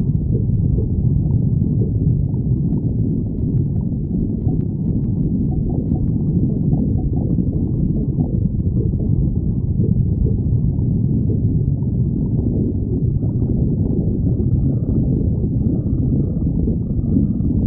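A hungry person's stomach growling without a break: low, continuous rumbling and gurgling.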